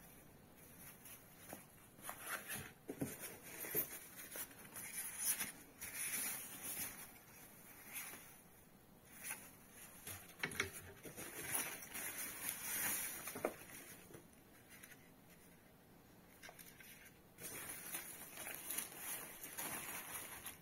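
Plastic wrapping and foam packing bags rustling and crinkling as wrapped plastic ceiling-light frames are handled in a cardboard box. The sound comes in irregular bursts, with a quieter pause of a few seconds past the middle.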